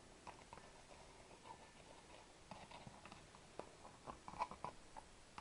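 Faint handling sounds of a Triumph T120 crankshaft and flywheel assembly being worked by hand: scattered light clicks and small taps, with a cluster of them from about halfway through to near the end.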